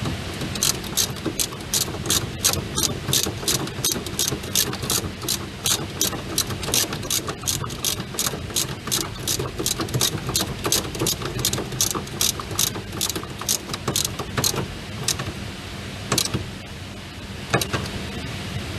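Sharp mechanical clicks or taps, about three a second, over a steady low hum. They thin out to a few single clicks near the end.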